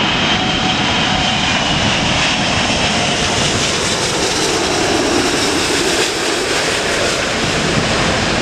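Airbus A380's four jet engines on short final, passing low overhead to touchdown: a loud, steady rush with a high whine over it that fades after the first few seconds.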